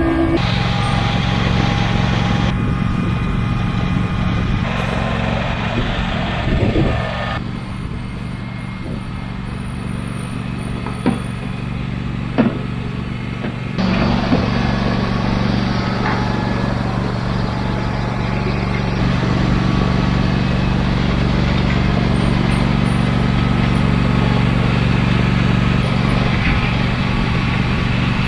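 John Deere garden tractor engine running steadily while towing a grader box over a gravel driveway, with two sharp knocks about halfway through.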